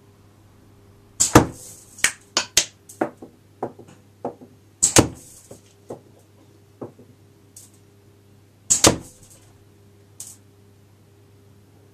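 Three shots from a homemade board-cut wooden slingshot with Theraband bands, about three and a half seconds apart. Each is a quick double crack, with lighter sharp clicks and knocks in between.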